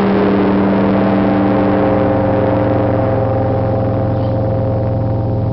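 The huge Tsar Bell of the Trinity-Sergius Lavra rings on after a single stroke, a deep beating hum under several steady overtones that slowly die away. One of the middle tones fades out about halfway through.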